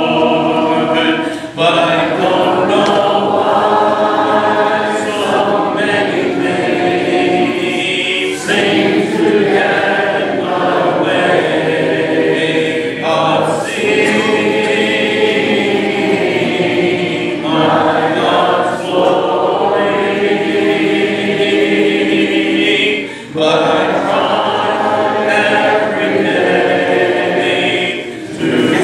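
Congregation singing a hymn a cappella, with no instruments, in long held phrases broken by short pauses for breath.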